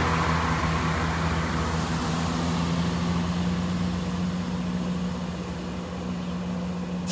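Class 171 Turbostar diesel multiple unit's underfloor diesel engines running at a steady idle, holding a low even hum. Over the first couple of seconds the rush of a departing Class 377 Electrostar electric train fades away under it.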